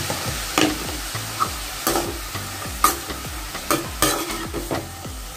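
Shredded vegetables frying in oil and ghee in a metal kadai with a steady sizzle, stirred with a perforated metal ladle that scrapes and knocks against the pan about once a second.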